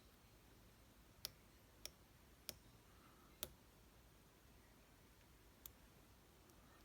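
Faint, sharp clicks of lock picking tools working in a brass American Lock padlock with a restricted keyway: four clicks in the first few seconds and one more near the end, with near silence between.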